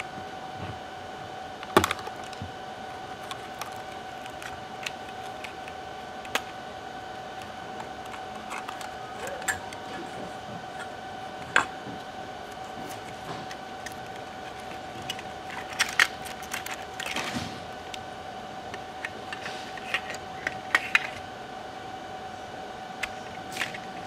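Scattered light clicks, taps and rattles of plastic and metal as a laptop hard drive caddy is unscrewed with a small screwdriver, pried open and the 2.5-inch drive lifted out, with a short rustle partway through. A steady tone hums underneath.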